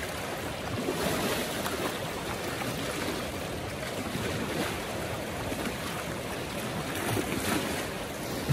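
River water splashing and sloshing steadily as an Asian elephant wades through it and rolls over on her side.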